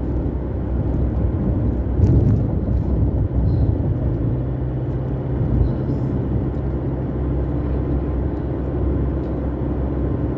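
Car cabin noise while driving: engine and road noise make a steady low drone, briefly a little louder about two seconds in.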